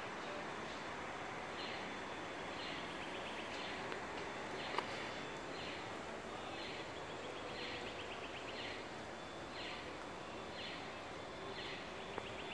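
Steady outdoor background noise with a bird repeating a short, buzzy call about once a second, and a single click about five seconds in.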